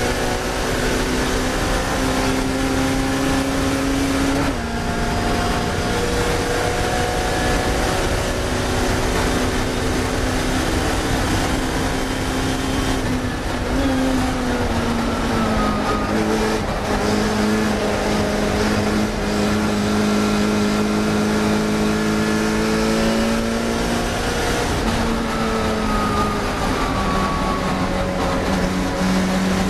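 Classic Mini racing car's four-cylinder A-series engine running hard at high revs. The pitch drops sharply about four seconds in at a gear change, slides down around the middle as the car slows, then climbs again.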